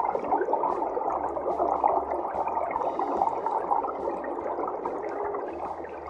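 Underwater bubbling and gurgling of water, steady throughout and fading out near the end.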